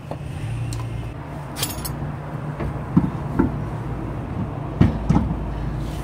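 A few light knocks and clunks as a two-piece mesh alloy wheel is pushed onto a car's rear hub and shifted on the studs for a test fit, over a steady low hum.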